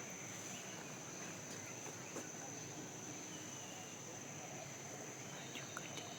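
Insects droning steadily at one high pitch, with a few faint ticks near the end.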